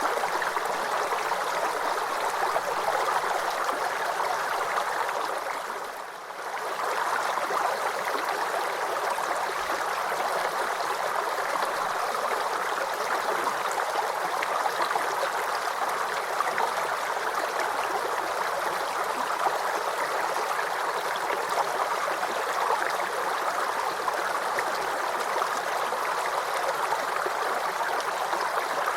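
Small forest creek babbling and gurgling over stones, a steady flow of water. It dips briefly in level about six seconds in.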